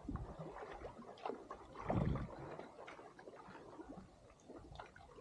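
Water lapping and slapping against a kayak hull in small irregular splashes, with a louder low thump about two seconds in.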